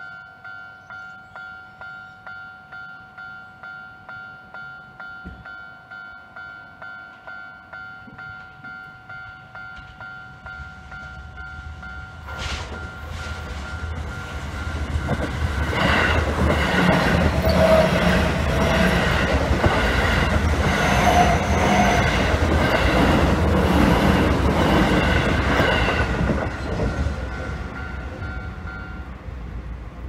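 A Japanese level-crossing warning bell dings steadily, about one and a half dings a second, and stops near the end. A Keio Line electric commuter train comes in and passes close by, loudest in the middle, its wheels clacking over the rail joints.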